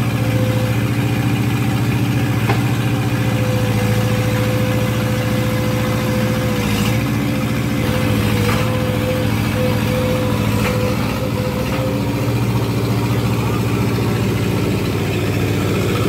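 Gehl 4625 SX skid-steer loader's engine running steadily, with a steady higher-pitched tone over the engine note.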